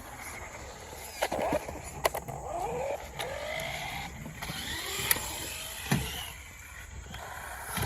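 Electric motor of a large radio-controlled monster truck whining as it revs up and down. There are a few sharp knocks, about two, five and six seconds in.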